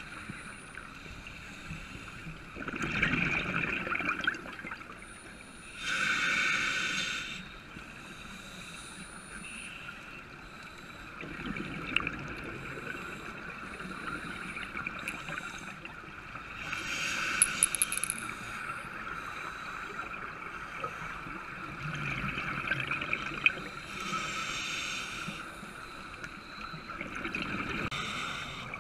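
Scuba diving regulator underwater: bursts of bubbling exhalation every few seconds over a steady hiss, with a few small clicks.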